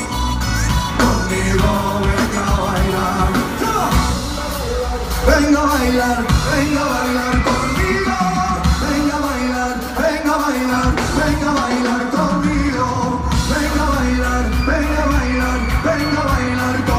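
Live pop band playing, with a male lead singer over guitars, keyboards and drums, recorded on a phone from within the audience.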